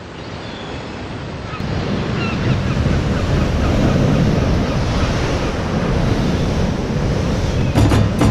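Ocean surf breaking and crashing against a pier's pilings: a steady rushing roar of white water that swells up about two seconds in.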